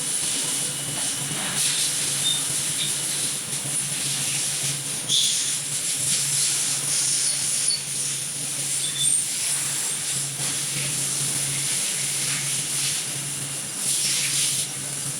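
CNC machine cutting metal: a steady hiss over a low hum, with a few short high-pitched squeaks.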